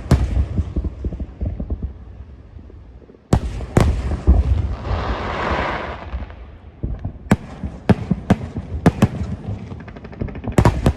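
Fireworks going off: a run of sharp, separate bangs a second or so apart, with a hissing, crackling spell in the middle.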